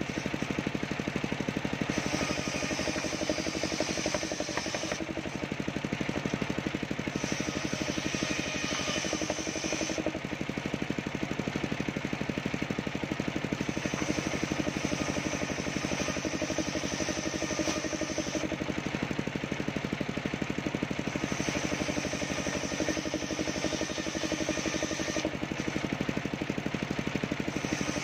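Large circular sawmill blade ripping waru (sea hibiscus) wood planks into battens, with its machine running steadily throughout. A high-pitched cutting sound comes and goes every few seconds as each plank is pushed through the blade.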